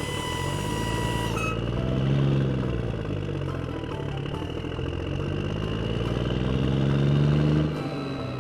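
Construction-vehicle engine, a grader's, revving up and falling back twice, with its pitch peaking about two seconds in and again near the end. A held high tone cuts off about a second and a half in.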